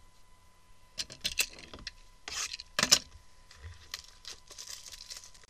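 Trading cards and packs handled on a table: scattered rubs and scrapes with a few sharp clicks, the loudest a little before three seconds in.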